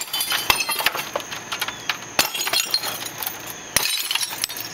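Broken porcelain toilet pieces cracking and clinking as they are jabbed and crushed with a long-handled tool in a plastic trash bin. Three harder hits stand out, about a second and a half apart, among continuous clatter of shards.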